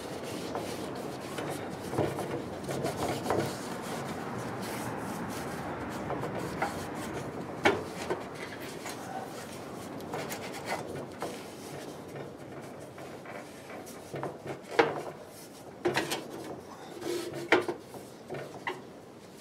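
Steady rubbing on the kerosene heater for about the first twelve seconds, then scattered sharp clicks and knocks as its metal parts are handled and fitted.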